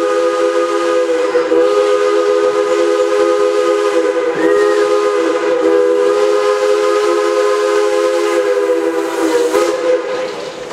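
Steam whistle of 1916 2-6-2 Prairie-type locomotive No. 4 sounding one long chime blast of several notes together. It wavers briefly a few times and cuts off near the end.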